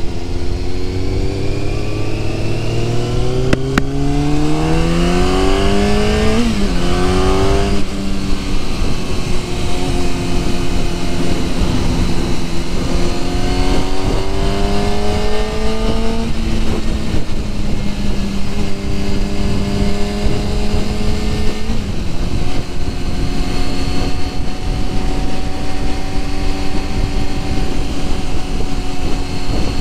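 1997 Yamaha YZF600R's inline-four engine pulling away and accelerating up through the gears: the pitch climbs in each gear and drops back at each upshift, about four shifts in the first two-thirds, then holds steady at a cruise. Wind noise rushes underneath throughout.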